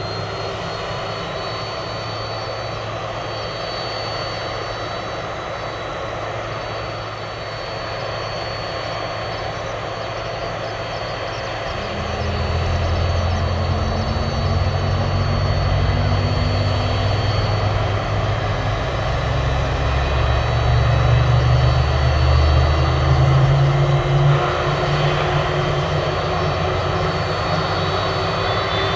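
Boeing 767-300ER's General Electric CF6-80C2B6 turbofans running at low thrust on the ground, a steady high whine over the engine noise. About twelve seconds in, a deep rumble comes in and the sound grows louder, with the engine note slowly rising.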